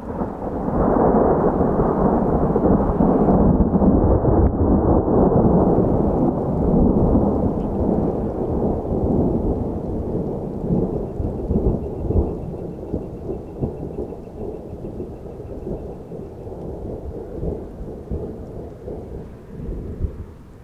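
A long rolling thunder rumble, deep and low, that comes in suddenly, is loudest over the first several seconds, then slowly fades away.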